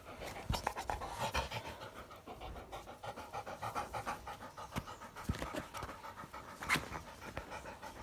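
A dog panting in quick, even breaths, with one louder breath about two-thirds of the way through.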